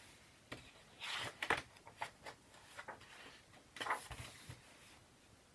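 Paper pages of a picture book being turned and handled: a few soft rustles and flaps, the clearest about a second in and again near four seconds.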